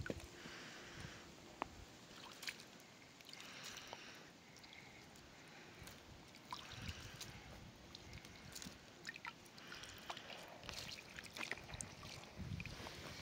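Water sloshing and trickling in a plastic basin as hands stir and rub wild mountain pistachios to wash them, coming in short bursts.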